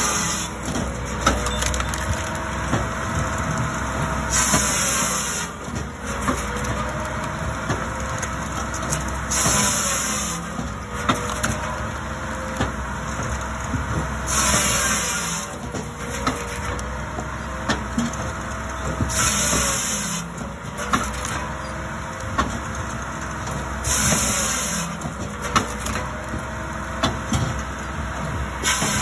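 Multitek firewood processor running: its engine and hydraulics drone steadily, rising and falling under load, and a short, high-pitched rasp of about a second comes roughly every five seconds as the circular saw cuts a round off the log.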